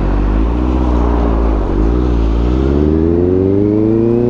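Motorcycle engine running under way, its pitch dipping briefly and then rising steadily through the second half as the bike accelerates, over wind and road noise.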